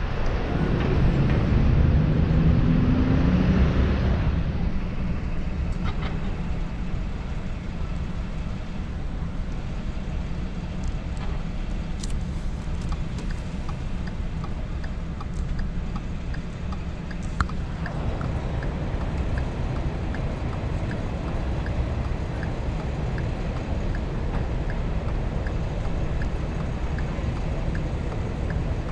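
Car running, heard from inside the cabin: the engine note rises as it pulls away in the first few seconds, then settles into a steady low rumble. A faint regular ticking runs through the second half.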